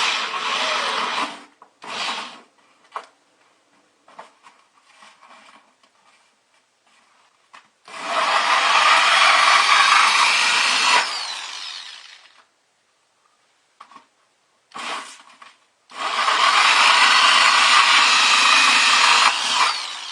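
Power drill cutting holes through a bucket's liner: three long runs of the drill under load, each about four seconds, with short blips of the trigger and faint handling sounds between.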